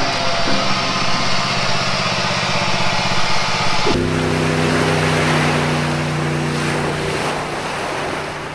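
Jet ski engine running, with rapid pulsing firing. About four seconds in it cuts suddenly to a steadier engine tone that slowly fades.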